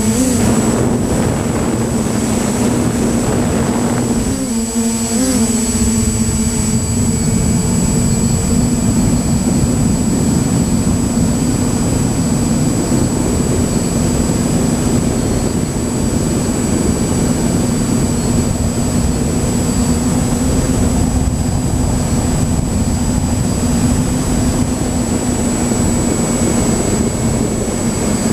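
A small drone's electric motors and propellers hum at a steady pitch, close to the microphone, over a rumbling rush of air noise. About four to five seconds in, the pitch wobbles briefly.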